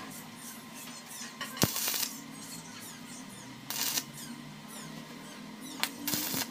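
Electric arc welding: the arc is struck three times in short tack-weld bursts, each a brief hissing crackle of under half a second, about 1.6 s in, near 3.7 s and just after 6 s.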